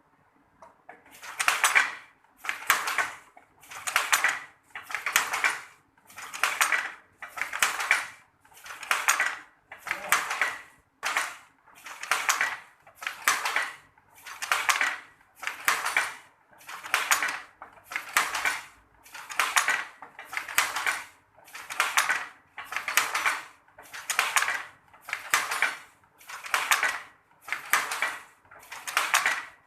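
Traditional hand-operated weaving loom clattering in a steady rhythm about once a second, weaving sarong cloth. The clatter starts about a second in.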